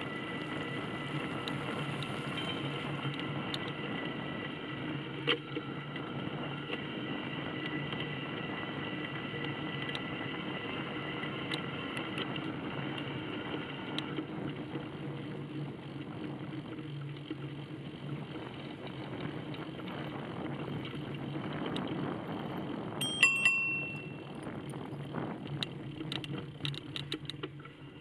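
A bicycle being ridden along a paved path, with a steady hum of riding noise. A bicycle bell is rung once, briefly, about three-quarters of the way through, followed by a string of clicks and rattles near the end.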